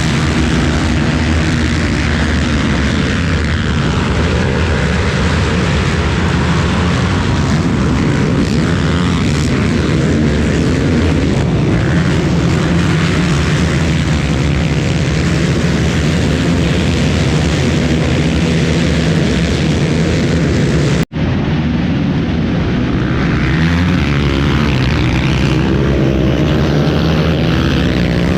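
Racing ATV engine running hard at fairly steady high revs, with a steady mechanical drone throughout. The sound cuts out for an instant about 21 seconds in.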